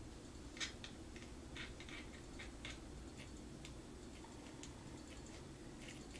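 Faint, irregular light clicks of a short Allen key working the forward grip frame screw into a paintball marker's grip frame, over a low steady hum.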